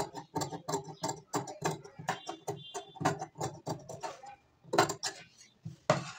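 Scissors snipping through Banarasi blouse fabric: a steady run of crisp cuts, about three a second, with a brief pause past the middle before a few louder snips.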